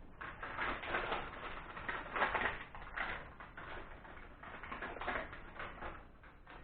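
Plastic protective wrapping being pulled off new bicycle parts, crinkling and rustling in irregular bursts that die down near the end.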